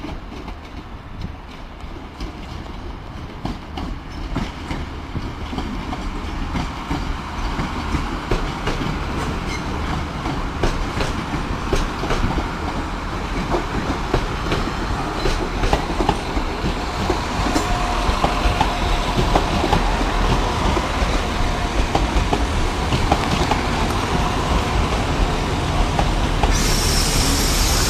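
Diesel multiple-unit trains running in over the station approach, wheels clicking over rail joints and pointwork, growing steadily louder. A high hiss comes in near the end.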